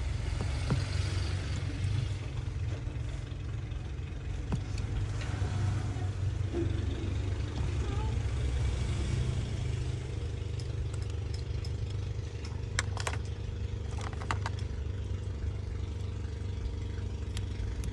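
Steady low background rumble with light clicks and taps from a precision screwdriver and tiny screws on a phone display's metal bracket, a few sharper clicks about two-thirds of the way through.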